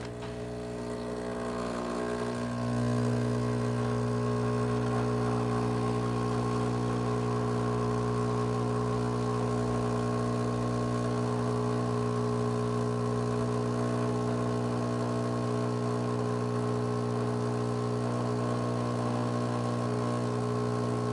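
Breville Barista Pro espresso machine's vibratory pump humming steadily while pulling an espresso shot. It gets louder over the first two to three seconds as the low-pressure pre-infusion gives way to full brewing pressure.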